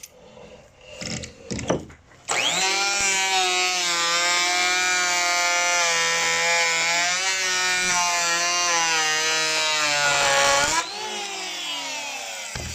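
Handheld electric planer switched on with a rising whine about two seconds in, running steadily for about eight seconds, then switched off and winding down with a falling whine.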